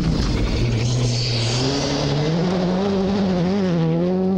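Rally car engine running hard on a gravel special stage, its pitch dipping about half a second in and then climbing as the car accelerates out of the corner, with gravel and tyre noise underneath.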